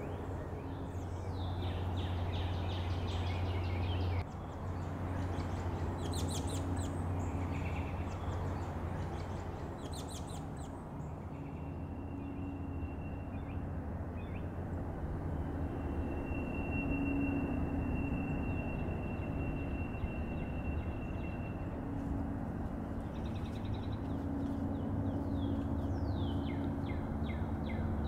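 Wild birds chirping in short trills at several points, with one long steady high whistle in the middle, over a steady low hum.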